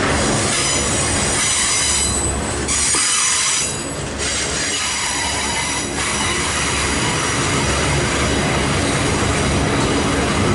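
Union Pacific intermodal train's double-stack well cars rolling past, steel wheels squealing on the rail over a low rumble. The squeal thins out briefly twice, about two and four seconds in.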